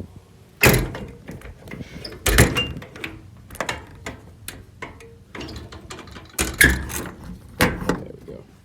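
Metal compartment doors of an IMT Dominator service body being shut, with latches clicking. Four loud bangs stand out, each followed by lighter clicks and rattles.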